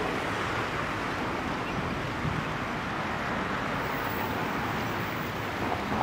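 Steady rush of water flowing along a concrete channel.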